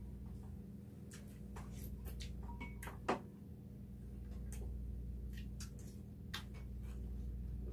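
Spoons and chopsticks clicking against bowls as people eat: scattered light ticks, with one sharper clink about three seconds in, over a steady low hum.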